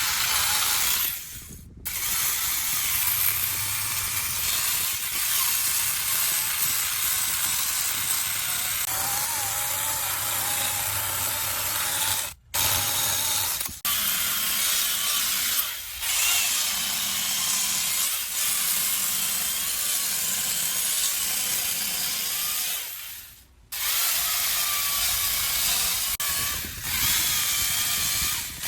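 Chainsaw cutting into wood, its engine pitch wavering under load. It stops abruptly a few times, about a second in, around the middle and near the end, then comes straight back.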